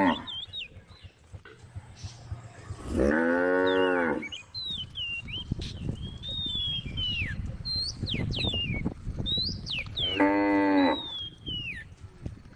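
A cow mooing twice, each call lasting about a second, the first about three seconds in and the second near the end. High thin chirps sound between the calls.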